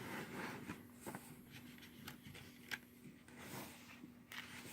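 Faint rustling and a few light taps over a low steady hum.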